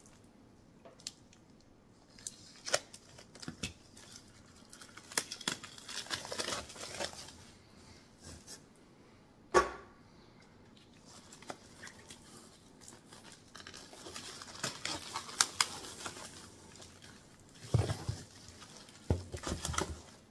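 Plastic shrink wrap around a bundle of comic books being slit with a utility knife and torn open, with crinkling of the film and a sharp click about halfway through. A few dull knocks near the end as the comics are handled.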